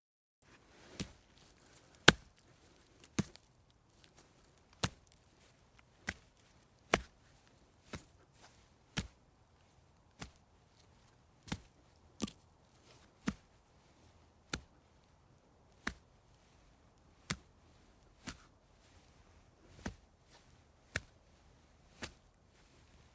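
A series of short, sharp knocks or clicks, about one a second, uneven in spacing and loudness, over a faint low hum.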